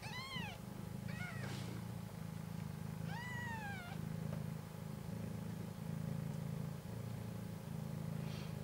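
Newborn kittens mewing three times in the first four seconds, thin high calls that rise and fall in pitch, the last one the longest. Under them runs a mother cat's steady purr that pulses in roughly one-second stretches with her breathing.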